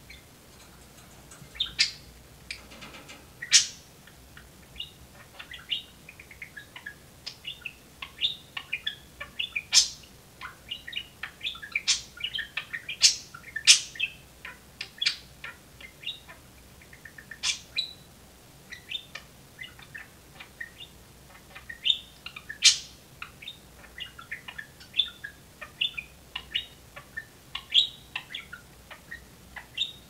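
Budgerigar chirping in a quick, continuous stream of short calls, with several sharper, louder chirps scattered through.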